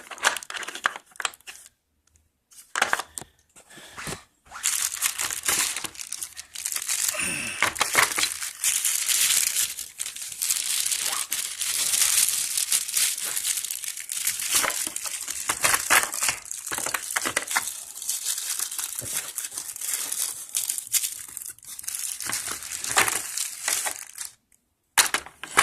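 Plastic packaging crinkling and tearing as a hydraulic crimper is unwrapped, with scattered sharp clicks and knocks of handling. The crinkling pauses briefly about two seconds in and again near the end.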